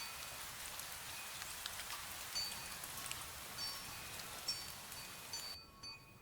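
Steady hiss of fine drizzle with scattered raindrop ticks, while a wind bell rings lightly now and then in short, high tinkling notes. The rain hiss cuts off suddenly near the end, leaving the bell.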